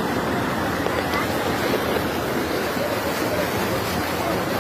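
Ocean surf washing onto the beach: a steady rush of breaking waves.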